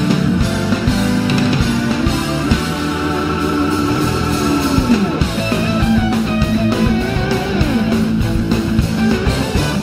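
Instrumental rock background music led by guitar, with sustained notes, some of them bent down in pitch.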